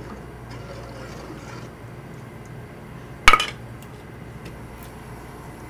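A single sharp metallic clink of cookware about three seconds in, ringing briefly, over a steady low background hum.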